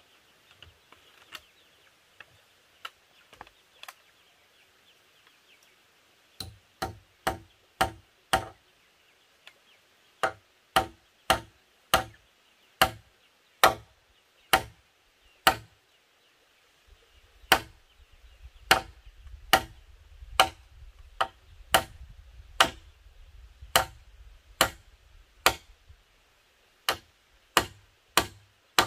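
A hand tool striking a wooden pole in sharp, even blows, roughly one a second, after a few faint taps at first. A low rumble runs under the blows in the second half.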